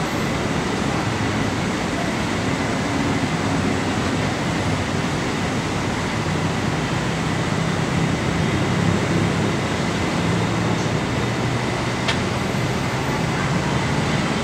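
Steady din of heavy city road traffic, mixed with a BTS Skytrain metro train running away along an elevated concrete viaduct. The noise stays level throughout, with no sudden events.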